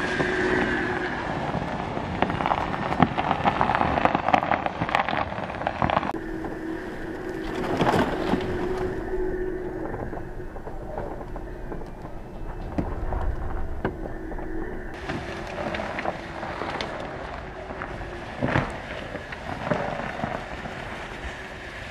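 Jeep Wrangler Rubicon 4xe crawling along a snowy off-road track: tyres crunching over snow with many irregular crackles and clicks under a faint steady hum.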